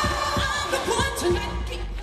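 Live pop concert music over an arena sound system: a singer into a microphone over a steady, heavy drum beat.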